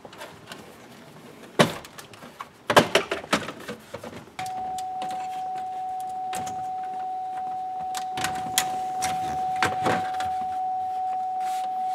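Plastic centre dash trim bezel on a Chevy Trailblazer being pried off, its retaining clips letting go in a series of sharp snaps and clicks. From about four seconds in, a steady single-pitch electronic tone sounds with a slight regular pulse, with more plastic clicks and knocks over it.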